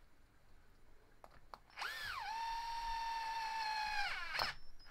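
Parkside cordless drill-driver spinning a socket to tighten a wheel nut on an RC crawler's hub. The whine starts about two seconds in, rises quickly, then settles to a steady lower pitch for about two seconds before stopping.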